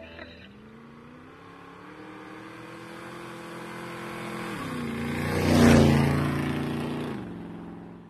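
Car engine sound effect: an engine revving up, dropping in pitch once as it shifts gear, then passing by, loudest about two-thirds of the way in and fading away near the end.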